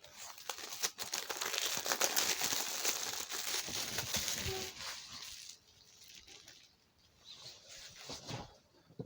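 Plastic shrink wrap being cut, torn and peeled off a DVD case, crinkling densely for about five seconds, then a few softer crinkles near the end.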